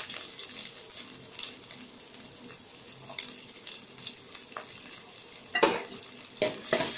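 Chopped shallots sizzling in hot oil with fennel, cinnamon, cloves, garlic and ginger, just added to the pan. The sizzle dies down over the first couple of seconds and then carries on more quietly. A couple of sharp knocks sound near the end.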